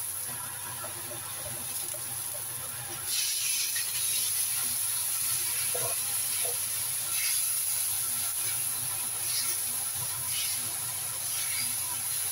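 Beef, bean sprouts and chives sizzling in a hot wok as they are stir-fried. The sizzle grows louder about three seconds in and swells again with each stir of the spatula.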